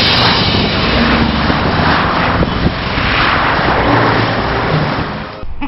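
Road traffic on a multi-lane highway: cars and trucks passing in several swelling whooshes of tyre and engine noise over a low steady rumble.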